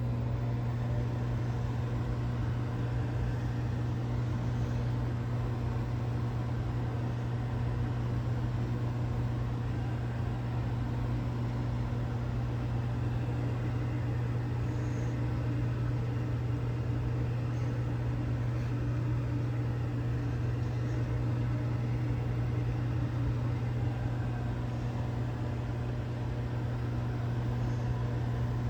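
Microwave oven running: a steady low hum over an even whirring noise.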